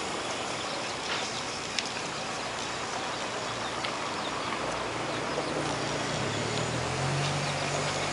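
Steady outdoor noise hiss, with a low engine hum from a vehicle building in about halfway through. A couple of sharp ticks sound in the first two seconds.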